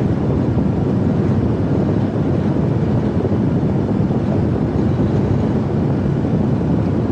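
Semi truck's diesel engine and road noise heard from inside the cab while driving: a steady, mostly low-pitched noise.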